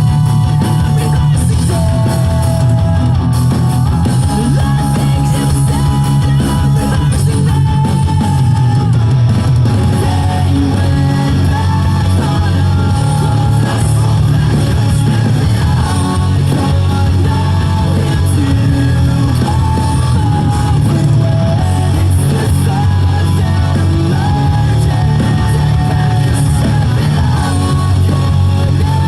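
Rock music with singing and electric guitar.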